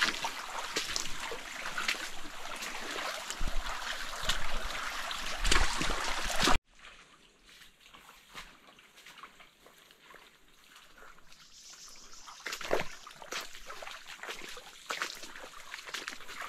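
A forest stream trickling, with scattered knocks and rustles. About six and a half seconds in the sound drops abruptly to a much quieter trickle.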